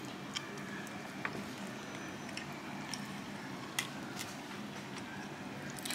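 Faint, soft squishy sounds of fingers pulling apart tender smoked brisket, then a person chewing a bite of it, with a few light clicks.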